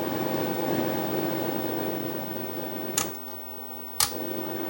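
Sony EVS7000 Hi8 deck playing back a tape's audio, heard as a steady hum and hiss, after a faulty 10 µF capacitor in its audio circuit has been bridged with a new one. A sharp click comes about three seconds in, the steady sound changes and drops, and a second click follows about a second later.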